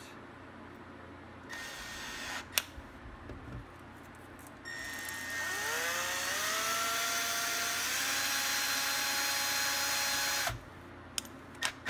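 Cordless drill spinning a small metal meter part in its chuck while it is polished with emery cloth: a short burst of motor whine, a click, then a run of about six seconds whose whine rises as it spins up, steps higher near the end and cuts off suddenly.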